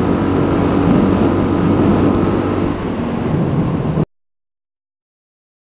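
Suzuki DR-Z400 motorcycle engine running steadily on the road, mixed with heavy wind rush over the microphone. It cuts off abruptly about four seconds in, leaving silence.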